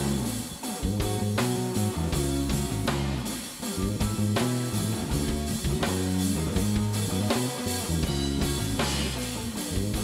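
Live instrumental band: a clean electric guitar over a bass guitar line, with a drum kit and cymbals keeping a steady beat.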